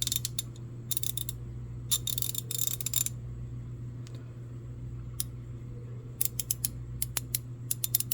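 Crescent 72-tooth 1/4-inch drive ratchet clicking in short runs of fine, rapid pawl clicks as it is worked back and forth, with scattered single clicks in the second half. A steady low hum lies underneath.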